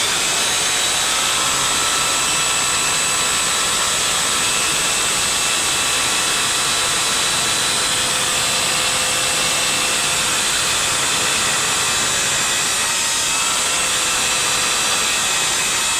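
Electric power drill running continuously at a steady speed, a high motor whine over noise.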